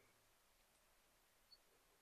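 Near silence: faint room tone, with one very faint tick about a second and a half in.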